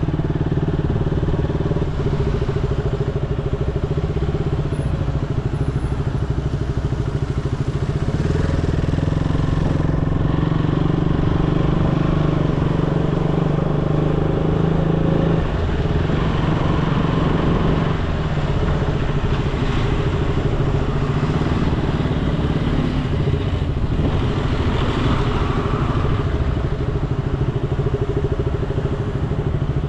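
Motorcycle engine running steadily while riding, with road noise.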